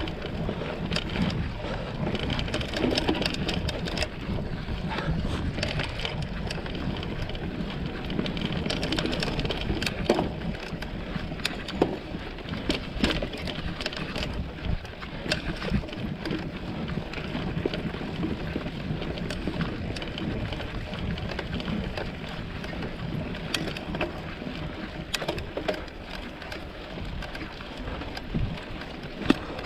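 Mountain bike ridden up a long climb on a dirt trail: steady tyre rumble with frequent sharp clicks and rattles from the bike and the ground, continuing throughout.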